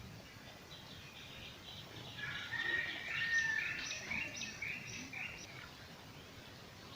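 A bird calling: a quick run of short high notes, with one briefly held whistle, lasting about three seconds in the middle, over faint outdoor background noise.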